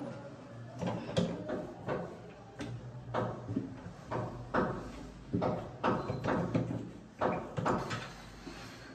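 A dozen or so irregular knocks, clicks and rattles from a wardrobe pull-down hanger lift as its rail and side fittings are handled and tightened into place, over a low steady hum.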